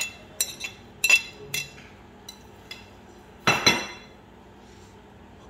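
Metal cookware and a utensil clinking: several light clinks over the first few seconds, then a louder double clatter about three and a half seconds in.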